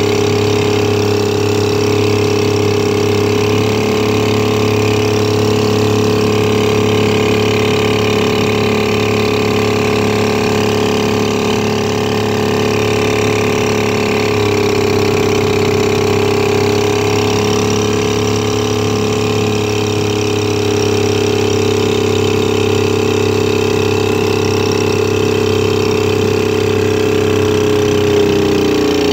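A 1926 Johnson A-25 2.5-horsepower opposed-twin outboard motor running steadily under way, with water churning in its wake. Its pitch shifts slightly a couple of times and drops near the end.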